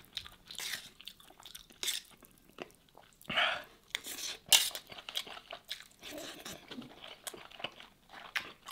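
Close-miked eating: a metal spoon scooping rice and lamb off a metal tray, then chewing and lip-smacking of the mouthful, heard as many short clicks and brief wet bursts.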